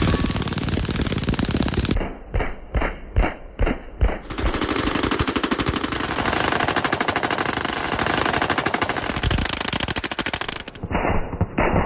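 Automatic gunfire from machine guns: a long stream of very rapid fire, broken about two seconds in by roughly five short bursts, then resuming unbroken for about six seconds before short bursts again near the end.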